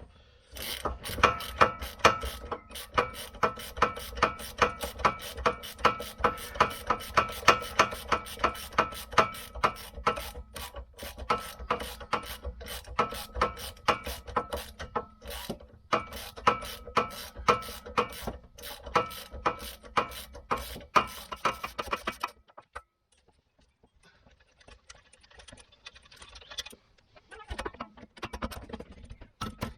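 Socket ratchet clicking in rapid, even strokes as it undoes the 16 mm rear hub bolts, with a few short breaks. It stops about 22 seconds in and starts again near the end.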